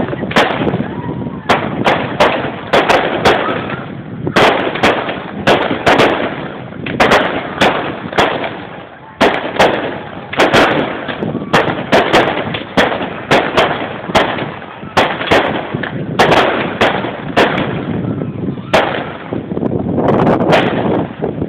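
Fireworks going off overhead: an irregular run of sharp bangs, often one to two a second, with crackle and echo filling the gaps between them. Near the end the bangs thin out under a steady rushing noise.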